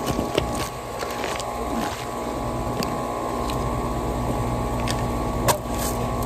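A steady mechanical hum with several fixed tones, broken by scattered light knocks and scuffs, one louder knock near the end.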